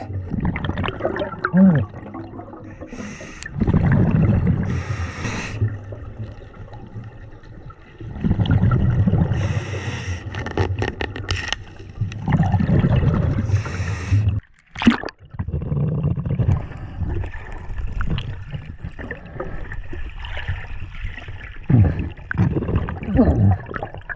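Scuba breathing underwater: hissing inhalations through the regulator, taken a few seconds apart, alternating with gurgling bursts of exhaled bubbles.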